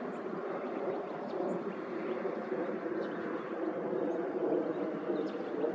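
Outdoor dawn ambience: a steady hum of background noise with a few faint, brief high bird chirps.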